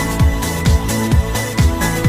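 Electronic dance music with a kick drum beating about twice a second over steady held synth tones.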